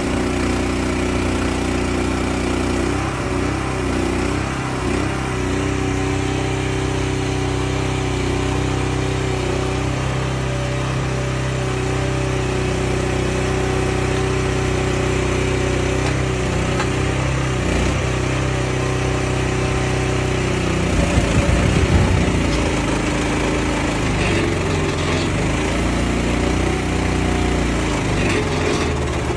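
Engine of a hydraulic log loader running steadily, its hum shifting in pitch as the hydraulics take load while the grapple boom swings and lifts logs. About two-thirds of the way through comes a brief, loud, rough clatter.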